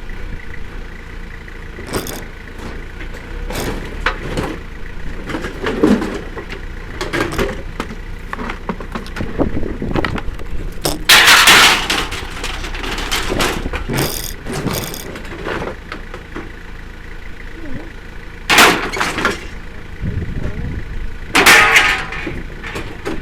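Scrap metal being thrown and dropped during unloading: a run of clattering metal impacts, the loudest crashes about eleven, eighteen and twenty-one seconds in, the last one ringing.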